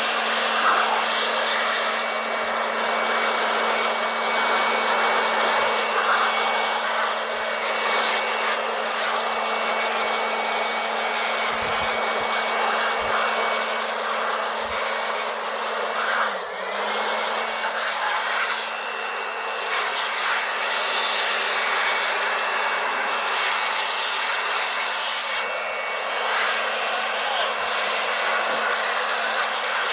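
Motor-driven air blower running steadily with a loud rushing whoosh, a hum and a whine. Its pitch dips briefly about two-thirds of the way through, as if the motor were loaded for a moment, then recovers.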